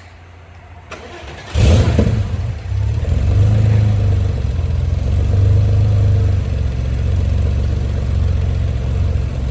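A 1990 Porsche 964 Targa's air-cooled 3.6-litre flat-six starting from cold after sitting over a day: a click and a brief crank about a second in, then it catches with a loud flare of revs and settles into a steady idle.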